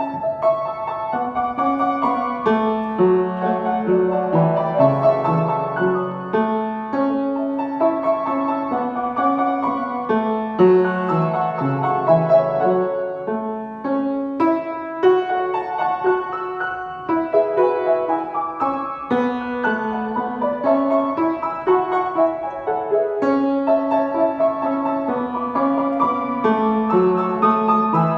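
Piano playing a slow, lyrical instrumental piece: a singing melody over a moving bass accompaniment, notes struck and left to ring.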